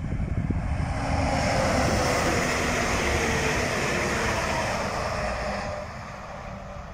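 Alstom Coradia Liner diesel multiple unit passing at speed: wheels on rail and engine noise, with a whine that slides down in pitch as it goes by. The sound fades away about six seconds in as the train recedes.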